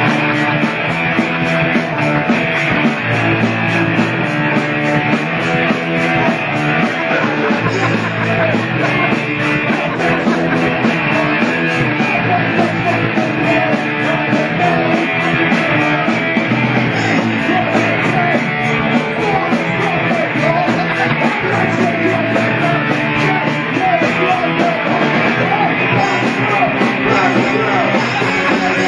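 Live punk rock band playing loud, continuous music.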